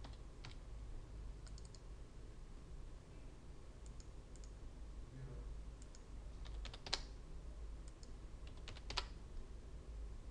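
Scattered keystrokes on a computer keyboard and mouse clicks, with two sharper clicks about seven and nine seconds in, over a low steady hum.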